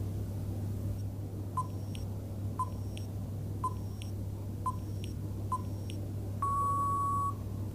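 Quiz countdown-timer sound effect: five short beeps about a second apart, then one longer beep that marks the end of the thinking time, over a faint steady low hum.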